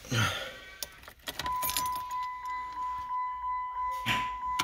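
Car keys jangle and click at the ignition, then a steady electronic warning chime from the Dodge Stratus dashboard starts about one and a half seconds in and keeps sounding.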